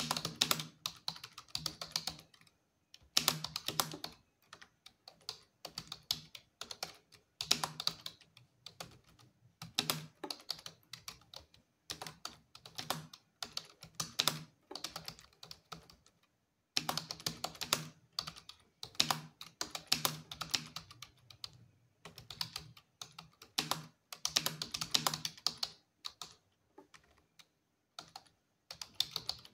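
Computer keyboard being typed on in quick runs of keystrokes, broken by short pauses, with a pause of about a second roughly halfway through.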